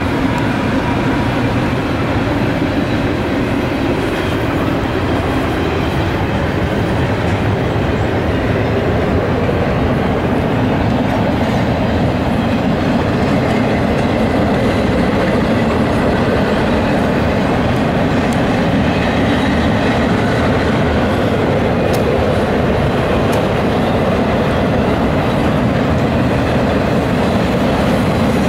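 CSX intermodal freight train rolling past on steel rails: its diesel locomotives go by first, then a long string of double-stack container and trailer-on-flatcar cars. The sound is a loud, steady noise of wheels on rail.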